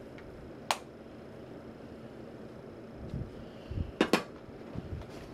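Plastic makeup compacts being handled on a table: a sharp click about a second in, a few soft knocks, then a quick double click near the end.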